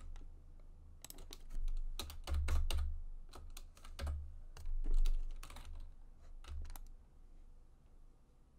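Computer keyboard keys and mouse buttons clicking irregularly, in small clusters, with a few dull low thumps.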